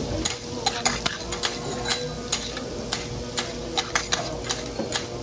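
Two steel spatulas clicking and scraping on a teppanyaki griddle as sliced garlic is tossed and stirred in the oil, in irregular sharp taps about three a second over a steady sizzle.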